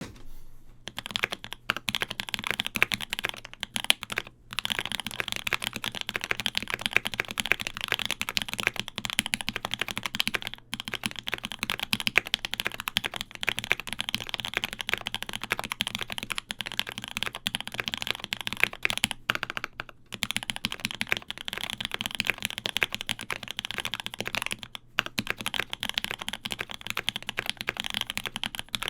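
Continuous fast typing on a KBD75 V3.1 mechanical keyboard fitted with lubed Popu linear switches on a polycarbonate plate with GMK keycaps: a dense run of keystrokes with a few brief pauses.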